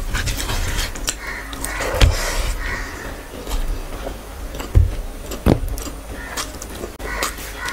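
Close-miked eating sounds: chewing and wet mouth sounds with fingers squishing rice and curry gravy on a steel plate, broken by a few dull thumps and sharp clicks.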